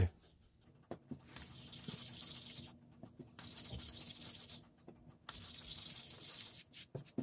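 Floured palms rolling a small ball of flour-and-water dough between them: three stretches of hissing rubbing, each about a second and a half long, with short pauses between.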